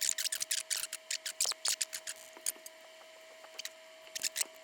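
Small metal tools scraping and tapping on the Macintosh SE/30 motherboard while desoldering old capacitor legs: quick irregular scratchy clicks, dense in the first two seconds, then a few more near the end.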